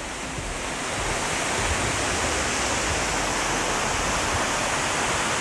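Lover's Leap Waterfall, with water falling and striking the rocks at its foot, making a steady rush that swells slightly in the first second.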